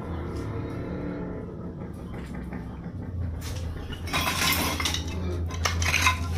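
Broken debris clinking and crunching, a run of sharp clinks and scrapes about four to six seconds in, as of shards of glass, tile and metal knocked together in the rubble of a collapsed building. A low steady hum runs beneath from about three seconds in.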